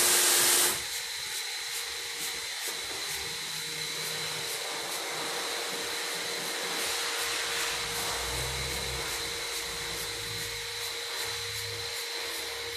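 A loud hiss of spray cuts off within the first second. A steady machine drone with a constant high whine then runs on.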